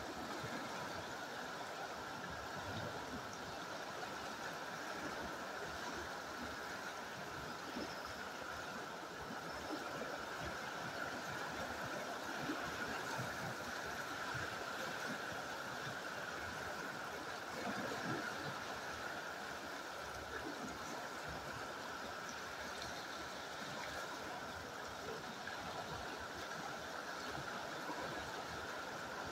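Fast river water rushing steadily over rocks.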